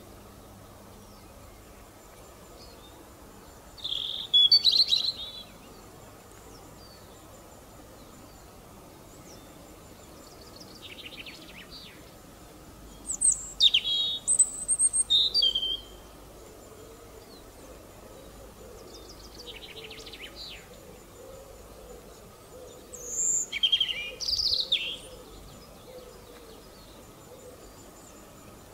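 European robin singing: three short phrases of high, quickly changing notes, spaced about ten seconds apart, over steady low background noise.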